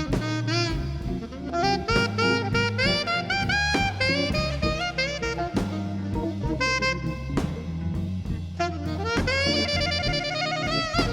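Jazz background music: a saxophone plays a melody with vibrato over bass and a drum kit.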